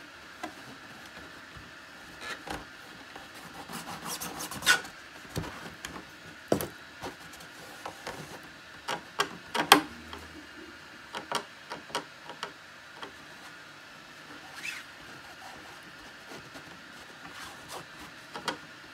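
Hands pressing and smoothing tape along the aileron hinge line of a 3D-printed plastic flying wing: soft rubbing with irregular small clicks and taps, busiest in the middle and sparser near the end.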